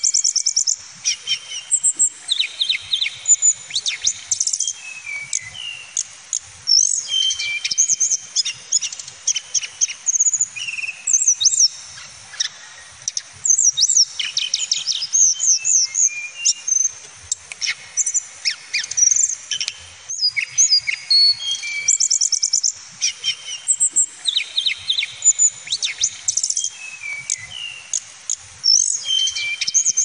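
Male hill blue flycatcher (Cyornis banyumas) singing: a run of varied high whistled phrases and fast trills, coming in bursts with short pauses between them.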